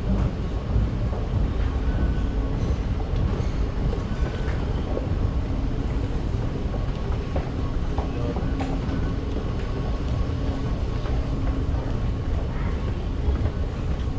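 Steady low rumble of an underground metro station, heard while riding a running escalator down, with light clicks here and there.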